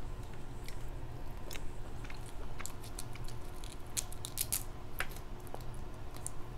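Close-up eating sounds of crab legs in sauce: wet chewing and biting, with a quick run of sharp clicks and cracks about four to five seconds in.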